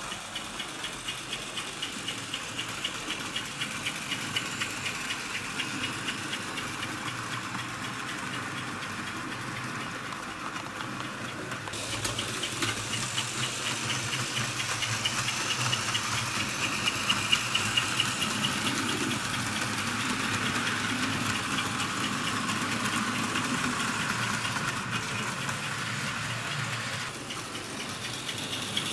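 Fleischmann HO tinplate model train running on its track: a steady electric-motor whirr with a fast, even clicking and rattle. The sound changes abruptly about twelve seconds in and again near the end.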